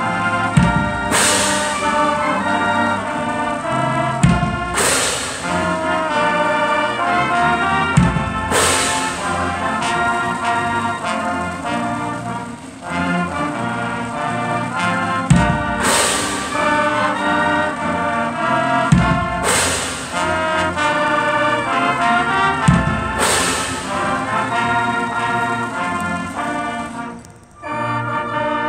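High school marching band playing a slow anthem: sustained brass chords with about six cymbal crashes and bass drum hits, a few seconds apart. The music dips briefly near the end before the next chord.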